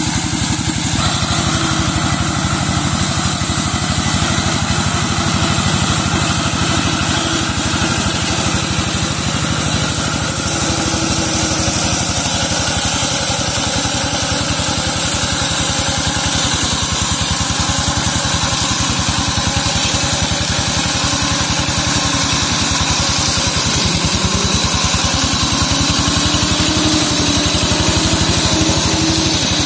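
Small engine of a walk-behind brush mower running steadily with an even, rapid firing beat while the mower cuts through undergrowth.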